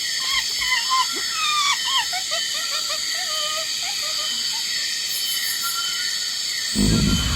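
Many short, high gliding chirps and whistles from animals or birds over a steady high insect-like buzz. Near the end a loud, low animal grunt or roar breaks in.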